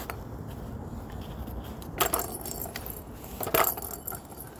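Two short jingling rattles, about two seconds in and again a second and a half later, over a low steady background.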